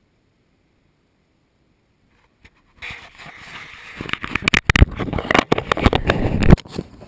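Handling noise from an action camera being worked loose from its mount: silence for about the first three seconds, then rubbing and scraping over the microphone with sharp knocks that grow louder, stopping suddenly near the end.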